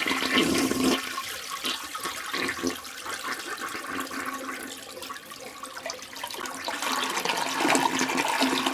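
A toilet flushing, water rushing and gurgling. It is loudest in the first second, eases off through the middle and swells again near the end.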